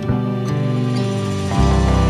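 Slow, soft instrumental background music of sustained chords; about a second and a half in the chord changes, a deep bass note comes in and the music grows louder.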